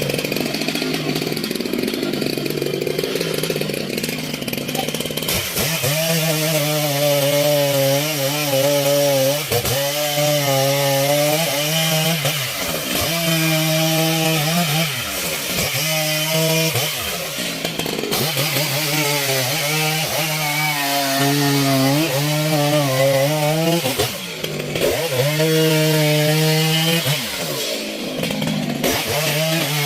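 Two-stroke chainsaw cutting wood. After a few seconds of rushing noise, its engine note comes in about five seconds in and keeps sagging under the load of the cut and picking back up, with several brief drops in revs.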